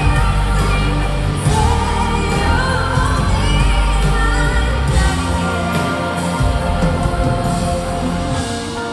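Live pop ballad from a concert hall: a woman's voice singing drawn-out, wavering lines over a full band with heavy bass.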